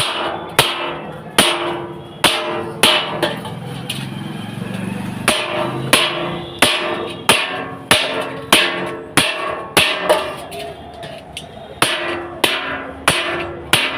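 Hand hammer striking iron on an anvil in a steady rhythm, about one and a half blows a second, each blow ringing; the hammering breaks off for about two seconds near the middle and then resumes.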